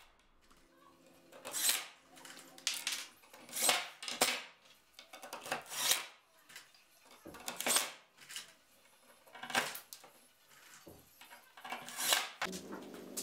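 Cordless drill run in about nine short bursts into a plywood board, a second or two apart: pre-drilling and countersinking a row of screw holes.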